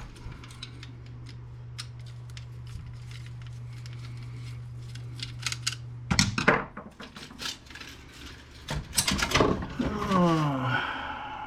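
Scattered clicks and clatter of small plastic and metal printer parts being handled during disassembly, over a steady low hum. It is loudest in bursts about six and nine seconds in. A brief falling pitched sound comes near the end.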